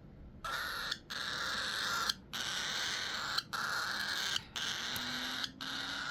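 Young cockatiel giving its raspy, hissing baby call, repeated as about five long calls of roughly a second each with short breaks between. This is the begging-style sound a young bird makes when sleepy.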